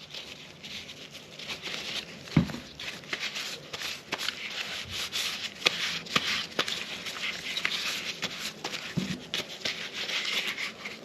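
A cleaning wipe rubbing over a Glock 44 pistol, a continuous scratchy rubbing with a few light knocks from the gun being handled.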